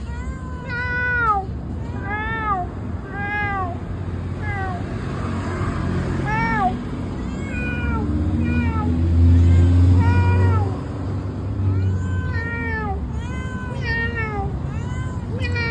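Domestic cat meowing over and over, short meows that rise and fall in pitch, about one to two a second. A low rumble runs underneath, loudest about nine to ten and a half seconds in.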